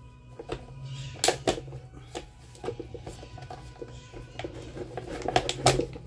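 Scattered light clicks and knocks of plastic and metal parts and tools being handled while an Arno Versatile fan is taken apart, the rear cover coming off; the clicks come closer together near the end.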